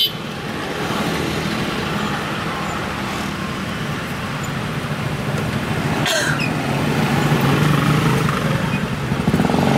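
Traffic noise in a crawling jam: car and motorcycle engines idling and running at low speed close by, a steady low hum. A brief sharp noise cuts through about six seconds in.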